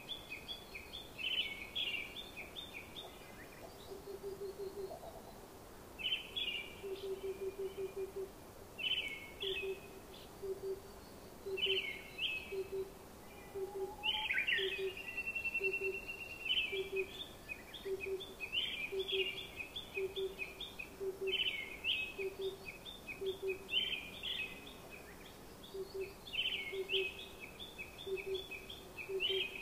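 Small birds chirping in short repeated phrases, with a low note repeating evenly a little more than once a second beneath them.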